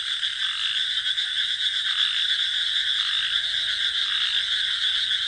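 Night chorus of frogs and crickets in a rice paddy: a dense, unbroken trilling mass of calls, with some voices in the chorus switching on and off about once a second.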